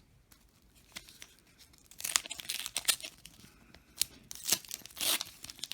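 Paper wrapper of a trading-card pack being torn open and crinkled by hand: a faint click, then from about two seconds in a run of sharp tearing and crackling bursts.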